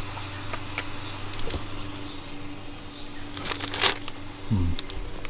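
Rustling and scattered light clicks as a folded rear-window sun shade is handled, with a louder rustle a little before four seconds in, over a steady low hum.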